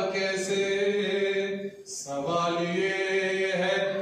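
A man's voice chanting devotional poetry in a sung, drawn-out style, in long held phrases. There is a short break with a hiss about halfway through.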